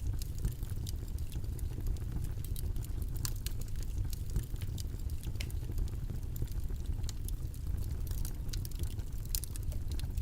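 Steady low rumbling noise, a white-noise study background, with scattered light clicks and ticks throughout.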